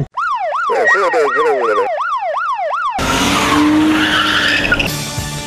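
A rapidly repeating swooping electronic tone, like a siren yelp, about two and a half swoops a second. About three seconds in it cuts off abruptly and a drifting car takes over, its tyres squealing as it slides, over the engine.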